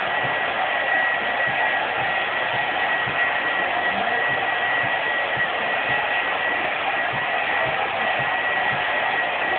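Electric hot-air blower running steadily, a continuous rush of air with a thin steady whine, warming the freshly sprayed tint on taillight lenses so the layer sets before the next coat.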